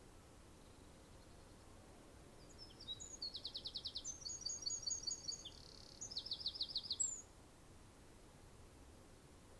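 A small songbird singing one song of about four and a half seconds, starting some two and a half seconds in. It has high chirps, two fast trills of about ten notes a second, and a varied warble between them, over a faint steady background.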